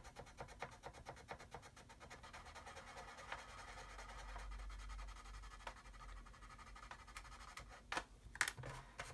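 Faint, rapid scratching of a sanding stick rubbed back and forth over the plastic hull of a model submarine's bow, in quick even strokes that weaken after about three seconds, then a few sharper clicks near the end.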